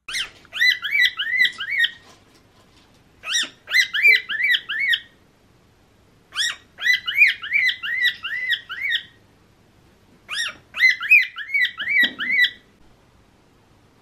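Cockatiel singing: four phrases of quick, repeated arching chirps, each about two seconds long with short pauses between. The song goes with a heart-wing display, which is sometimes territorial.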